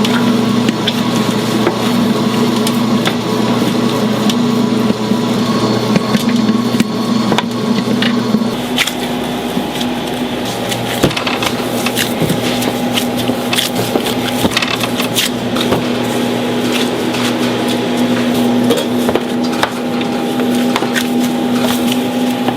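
Food-preparation clatter: irregular taps, clicks and knocks of utensils and trays over a steady hum of kitchen machinery.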